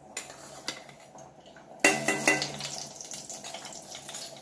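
Mustard seeds crackling and popping in hot oil in a kadai as they are tempered, the crackle thickening about two seconds in. A metal utensil clanks and rings briefly at the same point.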